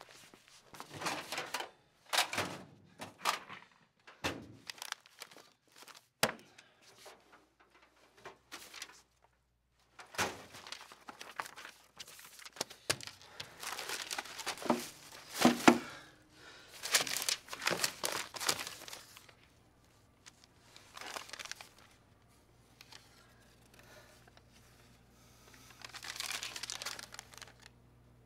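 Paper rustling and crumpling in irregular bursts as sheets and envelopes are rummaged through and handled on a desk, with an occasional thunk. It thins out in the last third.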